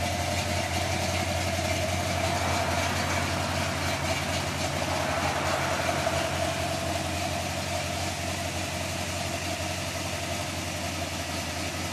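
Chevrolet C10 pickup's engine idling steadily, a low, even running note.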